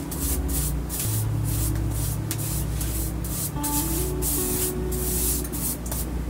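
Rolling pin working scallion-pancake dough on a board: a rhythmic rubbing swish, about two strokes a second. Background music plays underneath.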